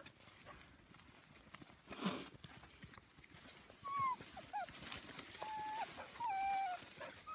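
Puppies whining: a few short, high whimpers about four seconds in, then two longer held whines. A brief rustle comes about two seconds in.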